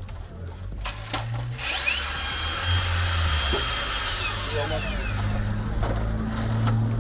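Electric drill spinning up, running at a steady pitch for about two seconds, then winding down.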